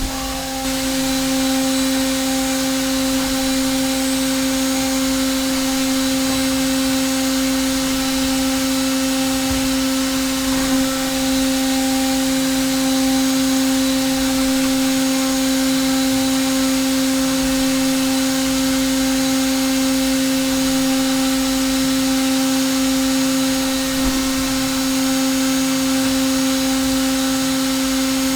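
Hermle C400 CNC milling machine spindle holding a steady speed with a 4.5 mm three-flute carbide end mill on a dry finishing pass in aluminium: a constant whine over a bed of hiss.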